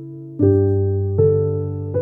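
Background music: slow, soft piano chords, a new chord struck about every three-quarters of a second and left to fade.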